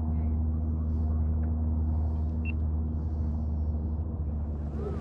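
An engine drones steadily at a low pitch, unchanging in level, like a motorboat running on the water.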